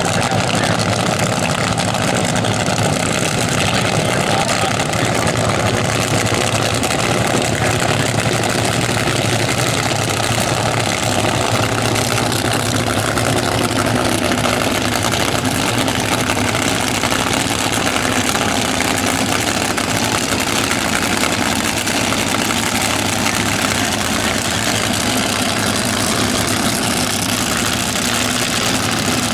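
Supercharged, nitromethane-burning fuel altered drag car engines running steadily at idle, loud throughout.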